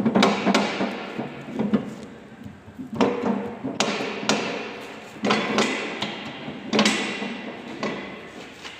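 Steel swing arms of a two-post car lift being moved and set by hand: a series of irregular sharp metallic clanks, some ringing briefly, as the arms knock at their pivots and toothed arm-lock gears.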